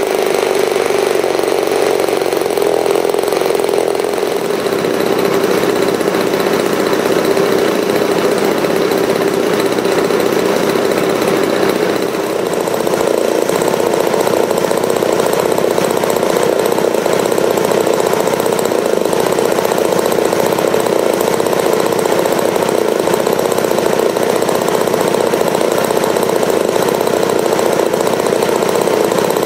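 RCGF 15cc two-stroke gasoline model-airplane engine running loud and steady on the ground, turning a three-blade 12x8 prop through a wrap-around Pitts muffler. It is being broken in at the low recommended speed of about 2500 rpm.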